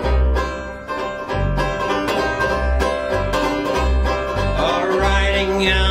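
Five-string banjo picking a steady, bouncy accompaniment with an upright double bass playing deep notes on the beat: the instrumental intro of a folk song.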